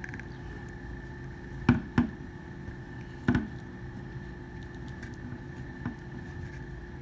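A few sharp knocks and taps from handling a Glock 19 pistol frame while pressing adhesive grip panels onto it: two close together, one more a little later, and a lighter one near the end, over a steady background hum.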